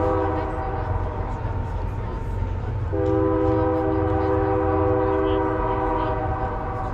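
Train horn sounding a chord of several steady notes, the end of one long blast fading out within the first second and a second long blast from about three seconds to about six seconds, over a low steady rumble.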